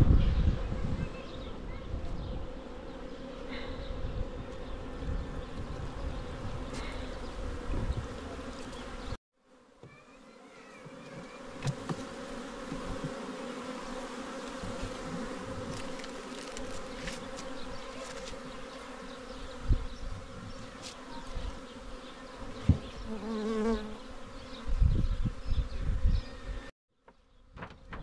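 Honeybees buzzing around an open hive, a steady hum, with some low rumbling from handling the hive; the sound cuts out briefly about nine seconds in and again near the end.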